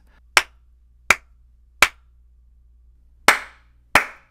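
Five sharp hand claps, three evenly spaced and then two more after a pause. The last two have a short trail of room echo from an untreated room.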